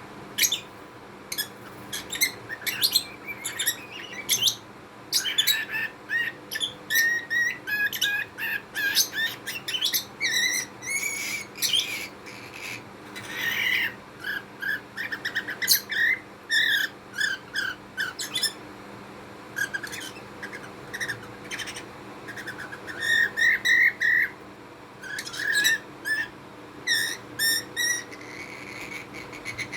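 Budgerigar chattering and warbling: a long run of quick, varied chirps and clicky notes with short pauses.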